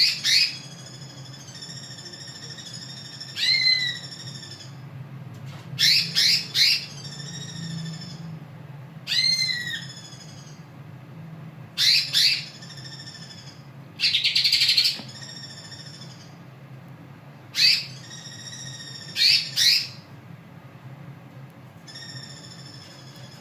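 Cucak ijo (green leafbird) singing in the harsh 'krodong' style: loud, sharp, steeply falling calls every few seconds, some doubled or tripled, with a longer raspy burst about halfway through, over steady high twittering. A low steady hum runs underneath.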